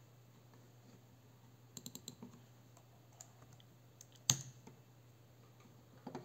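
A few scattered computer key taps and clicks as a score is entered on the scoreboard's web control page. There is a small cluster of light taps about two seconds in, one sharper click just after four seconds and a couple more near the end, over a faint steady low hum.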